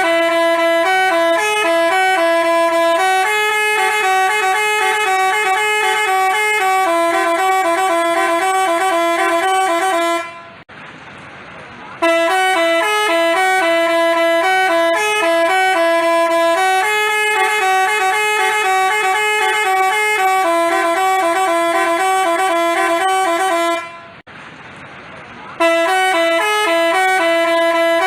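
Basuri-type telolet bus horn playing a quick multi-tone melody of stepped notes. It breaks off briefly about ten seconds in and again near the end, starting the tune over each time.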